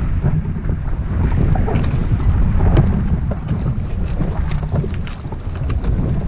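Wind buffeting the microphone over choppy open sea on a small boat, a loud low rumble, with scattered short sharp ticks through the middle of it.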